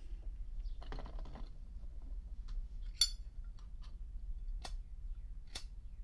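Brass Zippo lighter handled in the hand: its lid flips open with a sharp, ringing metal clink about halfway in, followed by several more sharp clicks as the flint wheel is struck. The lighter has no fuel in it, so no flame catches.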